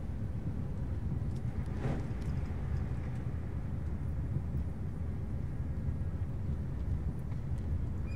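A car driving on a wet road, heard from inside the cabin: a steady low rumble of engine and tyres, with a brief hiss about two seconds in.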